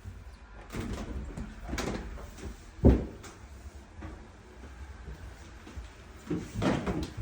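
Knocks, bumps and rustling from large household appliances being handled and moved, with one sharp thump a little under three seconds in.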